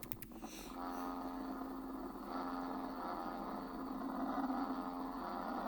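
Played-back space-sound recording presented as the sound of the planet Mercury: a steady, eerie drone of many stacked tones that sets in about a second in. A few clicks come just before it starts.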